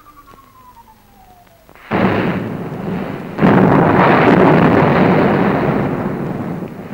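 An artillery shell whistles in, falling in pitch, then two shell explosions: one about two seconds in and a louder one about a second and a half later, whose rumble fades slowly.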